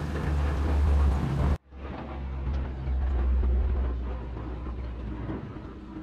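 Low, steady background rumble with a noisy hiss over it. It drops out suddenly for an instant about one and a half seconds in, then carries on.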